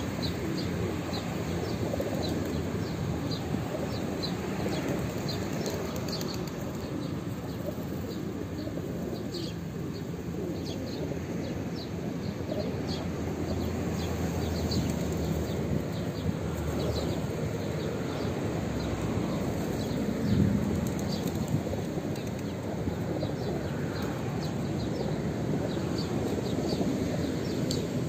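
A large flock of feral pigeons feeding, with a steady low murmur of cooing and wing flutters. Short, high chirps are scattered throughout.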